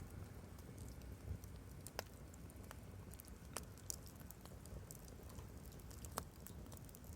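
Wood fire burning: faint irregular crackles and sharp pops over a low rumble, with two louder pops about two and six seconds in.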